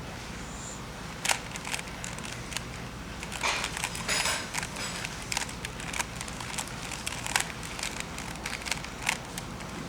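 Plastic Rubik's Cube layers being twisted by hand, giving irregular sharp clicks and rattles, with a quick run of turns bunched together around the middle.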